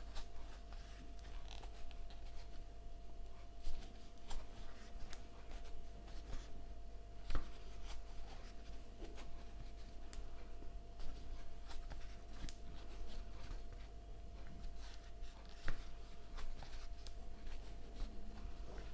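Crochet hook working thick t-shirt yarn stitch after stitch in single crochet: irregular soft rubbing and small clicks as the hook goes through the loops and pulls the yarn through, a few of them sharper.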